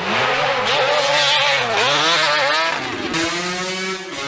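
Two-stroke motorcycle engines: a dirt bike's engine revving up and down several times under riding. About three seconds in, a cut to a Yamaha two-stroke street bike running on a dynamometer, its engine held at a steady high rev.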